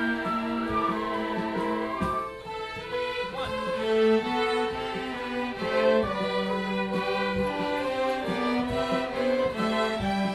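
Youth orchestra playing, led by bowed strings: violins and cellos carrying sustained notes and a moving melody.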